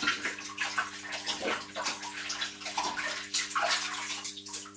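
Hands being washed under a running kitchen tap: water splashing unevenly over the hands as they rub, easing off near the end.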